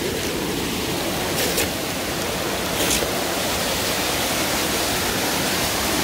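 Steady rushing of a small waterfall cascading between rocks in a mountain stream, its flow light.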